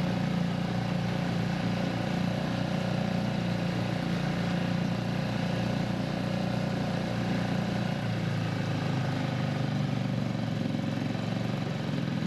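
A boat's motor running steadily, its note shifting about eight seconds in.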